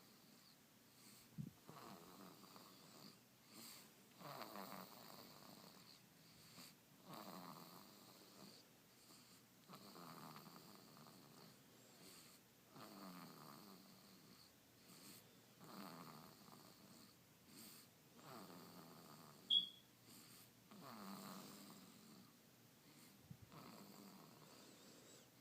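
Faint, slow snoring, one snore roughly every three seconds. A brief, sharp, high-pitched squeak cuts in about three quarters of the way through.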